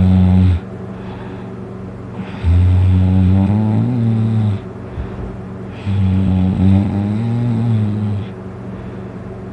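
Loud snoring from a person passed out drunk: long, low, rasping snores about every three and a half seconds, two full ones plus the end of another just as the sound begins, with a steady low hum between them.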